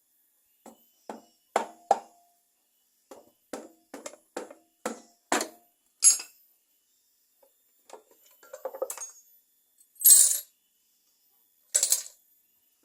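Metal parts being handled: a run of about a dozen sharp clinks and knocks, a short rattle about nine seconds in, and two bright ringing clinks near the end.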